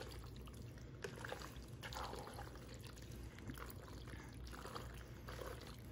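A spoon stirring penne pasta coated in Alfredo sauce and shredded cheese in a pot: faint, irregular squishing with a few small clicks.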